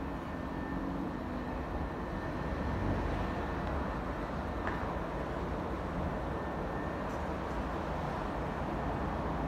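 Steady low rumble of distant city traffic, with a faint steady whine running under it.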